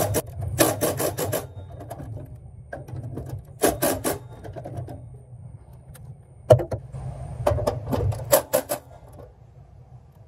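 Hand-tool work inside a new electrical meter socket: three short runs of quick rasping strokes, about six a second, with a single sharp click about six and a half seconds in, over a steady low rumble.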